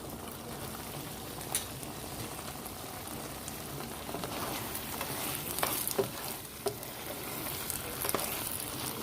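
Shrimp, green peas and bell pepper stir-fry sizzling steadily in oyster sauce in a hot pan while being stirred, with a few sharp clicks of the utensil against the pan.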